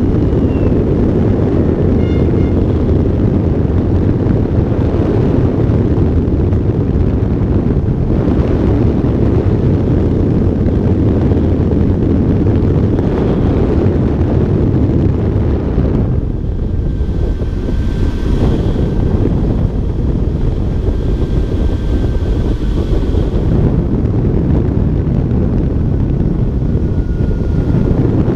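Wind buffeting the microphone of a wing-mounted camera on the Synchronus Goat electric ultralight in flight: a loud, steady rumble. A faint steady whine from the electric motor and propeller comes through in the second half.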